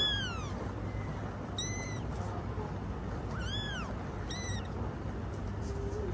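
Kittens mewing: four short, high-pitched mews, each rising and then falling in pitch, spaced a second or two apart.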